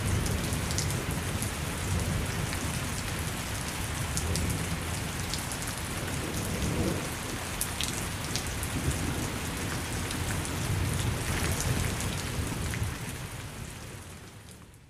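Thunderstorm: steady rain falling, with low rolling thunder rumbling in swells underneath. The sound fades out near the end.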